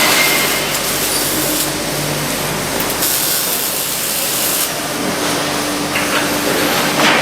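Factory-floor machinery running, a steady noisy din with a low hum, and a hiss about three seconds in that lasts over a second.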